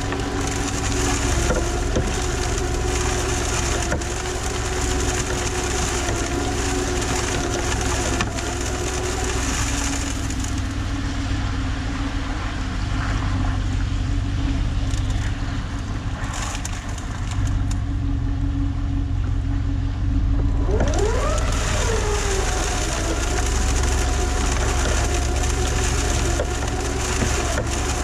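Work truck running during salting: engine rumble under a steady whine. The high end drops away for about ten seconds in the middle, and a short whine rises and falls about two-thirds of the way through.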